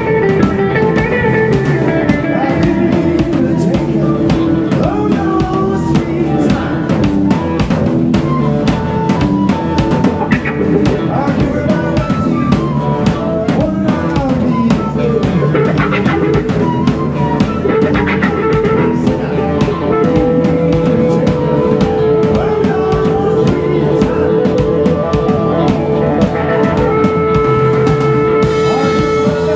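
Live rock band playing a song, drum kit driving a steady beat under guitar lines that bend in pitch, with a long held note through the last third.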